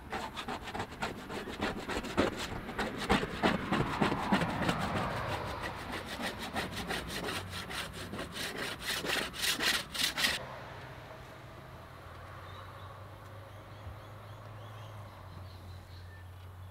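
Hand paint scraper scraping stripper-softened, blistered paint: quick, rhythmic strokes that get louder and then stop abruptly about ten seconds in.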